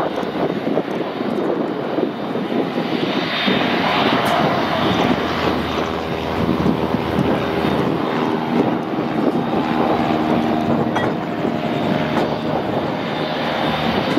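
Boeing 737-800's CFM56 jet engines running at taxi thrust: a steady jet noise, joined about five seconds in by a hum of several steady pitches.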